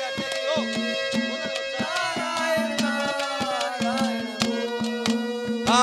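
Instrumental interlude of bhajan accompaniment: a harmonium holding steady notes and playing a melody over regular strokes of a hand drum.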